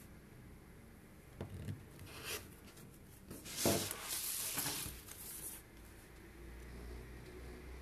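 Rotary cutter blade rolling through layered fabric against a cutting mat in a few short scraping strokes, then the cutting mat being slid and turned on the wooden table, the loudest and longest scrape, about halfway through.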